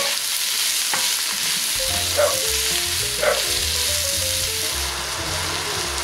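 Sliced chanterelle and cep mushrooms sizzling steadily as they fry in olive oil with shallots in a non-stick pan, stirred, with a few light knocks in the first half.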